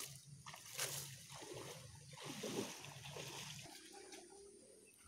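Faint, intermittent splashing and sloshing of shallow muddy swamp water as a hand net is worked through it.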